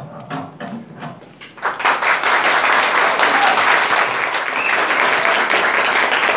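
Room full of people applauding, the clapping coming in suddenly about a second and a half in and then continuing steadily and loudly.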